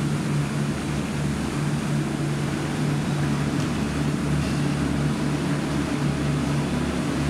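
A steady low mechanical hum runs throughout, with a faint tap of a putter striking a golf ball about three and a half seconds in.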